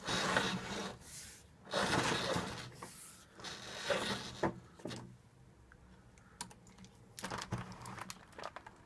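Roller blind being worked by hand on its bead chain. There are three rustling pulls of about a second each in the first five seconds, then a shorter one and a few light clicks near the end.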